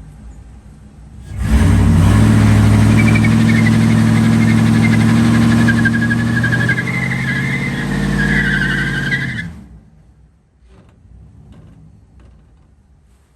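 Car burnout: the engine is held at high revs while the tyres squeal with a wavering shriek for about eight seconds, then it cuts off. The car has a slipping, failing transmission.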